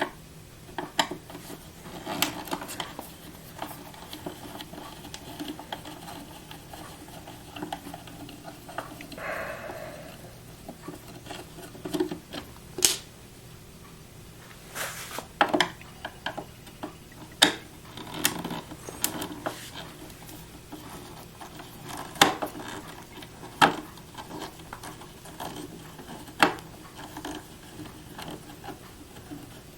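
Phillips screwdriver unscrewing the casing screws of a counterfeit detector machine: scattered, irregular clicks and small knocks, with a longer scrape about a third of the way in.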